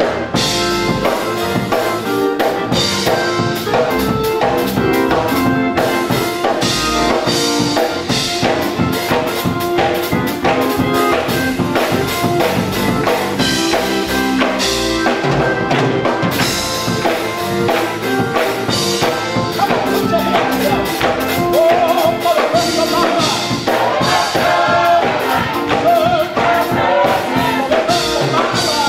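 Live gospel music from a church band, a drum kit keeping a steady beat under sustained instrument chords. A choir's singing comes in more clearly about two-thirds of the way through.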